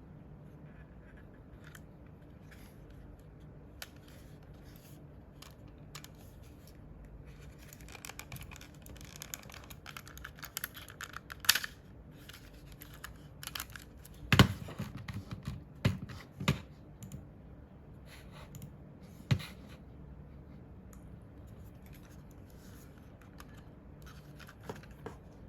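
Scattered small clicks, scratches and taps of small plastic parts being handled, with a few sharper, louder knocks midway.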